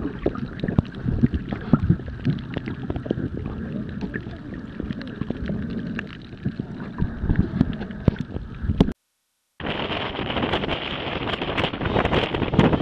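Muffled underwater sound from a submerged camera: low water sloshing and bubbling, peppered with many small clicks. About nine seconds in it cuts out abruptly. After a moment's silence, a steady outdoor hiss of wind on the microphone takes over.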